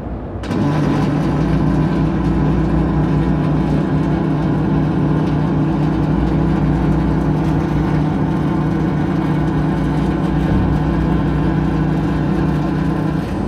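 Robotic pulsed MIG welding arc on galvanized steel sheet: the arc strikes about half a second in and runs as a steady buzz with a fine crackle, cutting off near the end.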